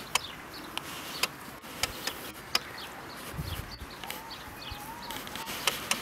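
A donkey foal's small hooves stepping on dry gravelly ground in a few sharp, separate clicks, with birds chirping faintly in the background.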